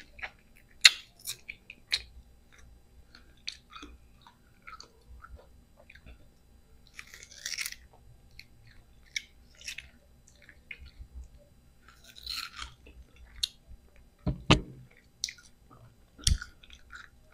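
Close-miked biting and chewing of a peeled mango eaten with bagoong: sharp crisp bites at the start, then wet, smacking chewing. Two dull knocks come near the end.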